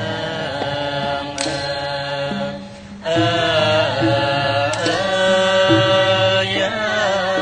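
Khmer mahori ensemble music: a chorus of young men singing together in a melismatic classical style over bowed fiddle and xylophone accompaniment. The singing breaks off briefly about two and a half seconds in, then resumes.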